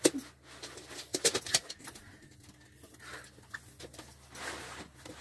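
Dogs playing tug with a rope toy: short knocks and scuffles, clustered at the start and about a second in, with soft vocal sounds from a dog.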